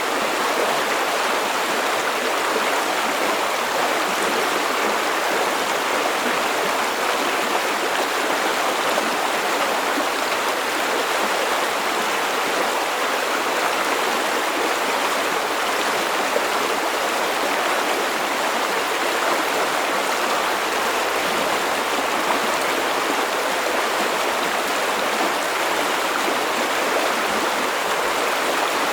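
River water flowing: a steady, unbroken rush of water, more hiss than rumble.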